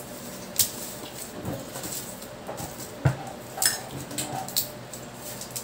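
Garlic being peeled by hand: dry papery skins crackling and rustling, with scattered sharp clicks as cloves are pulled off the bulb. The loudest click comes about three seconds in.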